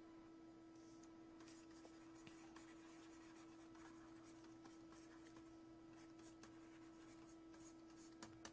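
Faint scratching strokes of a stylus writing on a tablet, with two small clicks near the end, over a steady low electrical hum.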